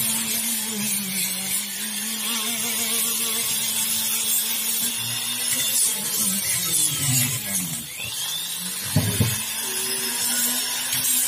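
Flexible-shaft rotary grinder with a small sanding drum running inside the crankshaft bearing housing of an aluminium Yamaha F1ZR crankcase, sanding off stuck-on residue from the repaired bearing seat. Its steady whine sags in pitch and recovers about seven to eight seconds in. A brief low thud comes near nine seconds.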